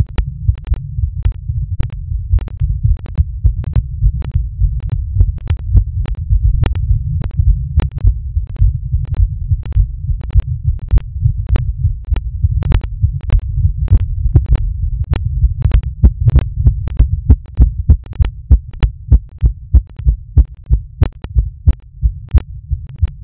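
A human heartbeat amplified through a smartphone heartbeat app: deep, muffled thuds with faint clicks on each beat. It runs at about 105 beats a minute, easing to about 90 near the end.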